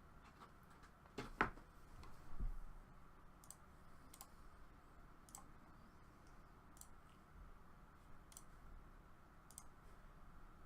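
Faint computer mouse clicks: a few close together about a second in, then single light clicks every second or so. A soft low thump comes shortly after the first clicks.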